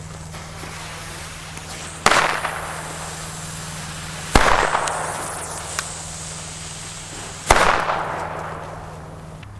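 Firecrackers exploding on the ground: three sharp bangs a couple of seconds apart, each trailing off in a long echo.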